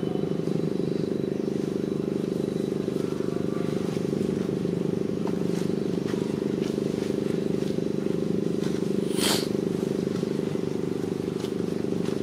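A steady low mechanical drone, like an engine running, holds at an even level throughout. A brief high chirp cuts through it about nine seconds in.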